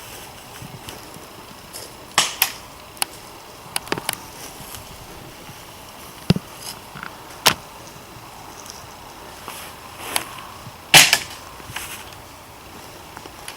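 Airsoft guns firing scattered single shots: a dozen or so sharp cracks at irregular intervals, some in quick pairs, the loudest about eleven seconds in.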